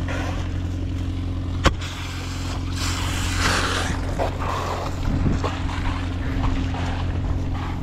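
A steady engine drone with a low hum. A single sharp click comes about one and a half seconds in, and there is some hissing rustle.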